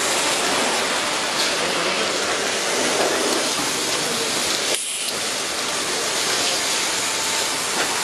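Water jets of an automatic train washing plant spraying a train: a steady hiss that drops out briefly about five seconds in.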